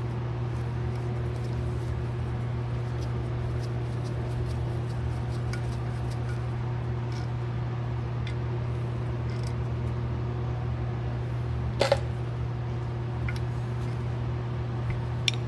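Steady low hum in the background, with faint scattered clicks of small carburetor parts being handled and one sharper tap about twelve seconds in.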